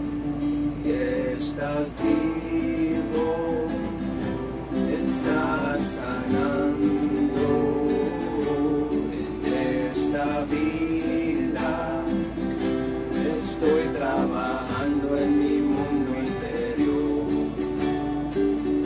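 Two acoustic guitars strummed together, one of them a nylon-string classical guitar, with a man's voice singing over them at times.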